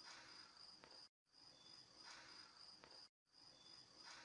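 Near silence: a faint hiss with a steady high-pitched tone. The same short stretch of about two seconds repeats, broken twice by brief cuts to dead silence.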